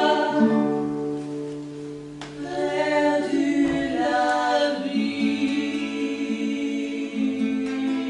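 Voices singing long held notes in harmony, with a harp being played beneath them.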